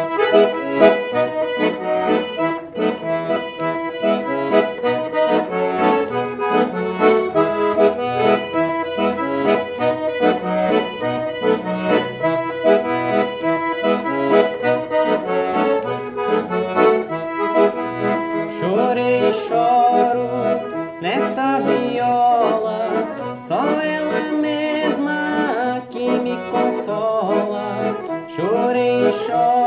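Piano accordion playing an instrumental passage: a melody over a rhythmic accompaniment of bass notes and chords.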